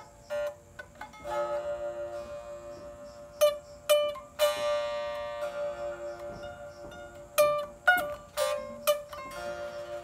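Sape, the Orang Ulu boat-shaped wooden lute of Borneo, played solo: a slow tune of plucked notes ringing over a steadily held lower note, with a few sharper, brighter plucks in the middle and near the end.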